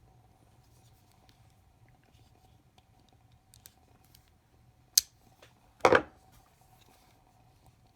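Damascus folding pocket knife being handled: a few faint ticks, a sharp click about five seconds in, then a louder, short clack about a second later.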